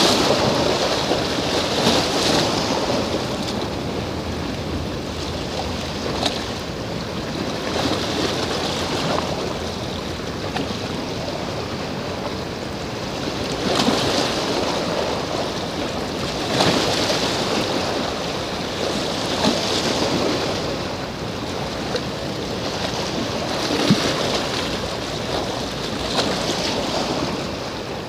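Small waves washing against a rocky shore, swelling and easing every few seconds, with wind buffeting the microphone.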